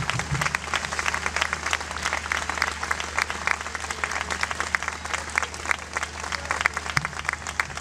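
Audience applauding, a dense, irregular patter of many hands clapping, with a low steady hum underneath.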